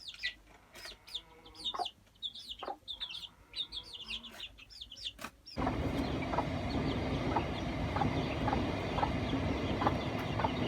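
Chicks peeping: many short, high-pitched chirps, each falling in pitch, in quick succession. About halfway through the sound cuts abruptly to a louder, steady noisy background with short notes repeating about twice a second.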